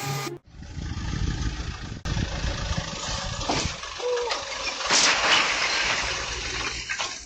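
A machine's engine running, with scattered knocks. The sound drops out sharply about half a second in.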